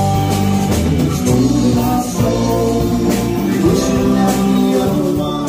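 Live band playing: electric guitars, electric bass and drum kit, with a male voice singing.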